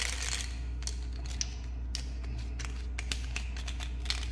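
Hard-shelled, candy-coated chocolate drops clicking and rattling against each other and against plastic as they are handled, in irregular sharp taps several times a second, over a low steady hum.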